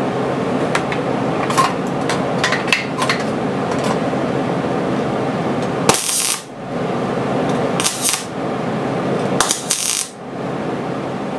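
Electric arc welding on thin sheet metal: the arc crackles and spits steadily with the current just turned down after running too hot, and it breaks off briefly twice.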